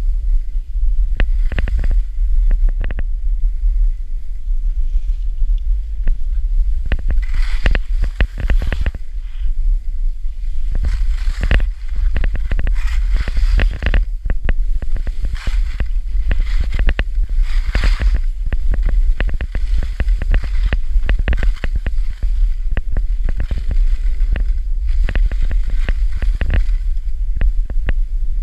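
Skiing downhill: wind buffets the camera's microphone in a heavy, constant low rumble, with frequent short scrapes and clicks from the skis on the snow.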